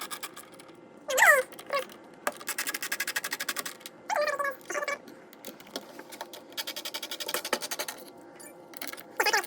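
A screwdriver working the screws of the plastic CPU-cooler mounting brackets on a motherboard, heard as two long runs of rapid, even clicking, with a couple of brief voice sounds in between.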